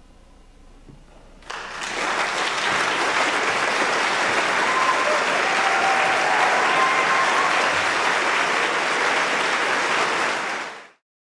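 Audience applauding, breaking out suddenly about a second and a half in after a brief quiet, holding steady, then fading out quickly near the end.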